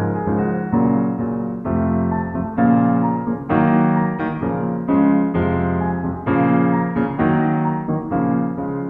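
Background piano music, chords played in a steady rhythm of notes changing about every half second to a second.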